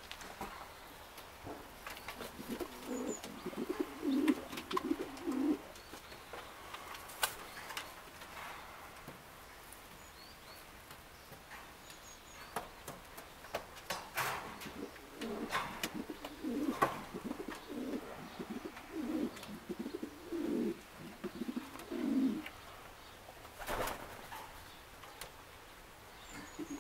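Domestic pigeons cooing, in a run of coos a few seconds in and again in a longer stretch past the middle, with a few sharp clicks in between.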